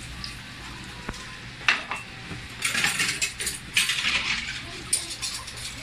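Dishes being washed by hand in a kitchen sink: a sharp clink about two seconds in, then a run of clattering and clinking of cutlery and pans in the second half.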